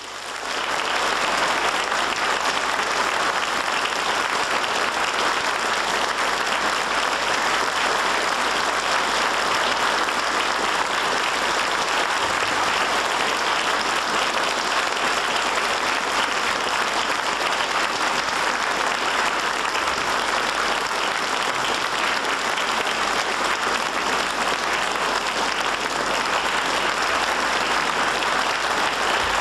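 Concert hall audience applauding: dense, even clapping that comes in abruptly at the start and keeps on steadily without letting up.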